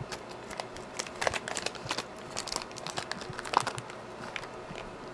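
Irregular light clicks, taps and rustles of a small chip and tools being picked up and handled on a micro-soldering bench, with one sharper click about three and a half seconds in, over a steady hum.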